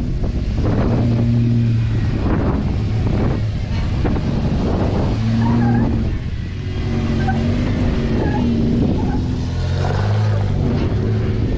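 Jeep Wrangler Rubicon engine revving in repeated surges as it crawls up a steep slickrock climb.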